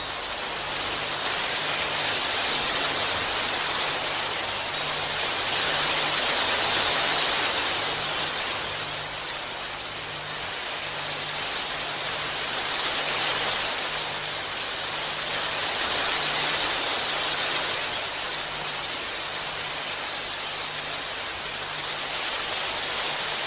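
Heavy, steady rain falling, a dense hiss that swells and eases in slow waves every few seconds.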